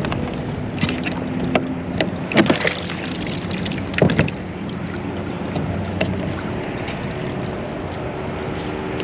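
Several knocks and clunks of gear being handled on a fishing kayak, the loudest about two and a half and four seconds in, over steady wind and water noise.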